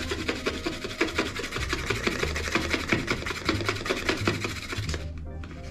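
Folded cardboard toilet paper roll being scraped back and forth across a tile floor under a door: a dense, rapid rasping that stops about five seconds in.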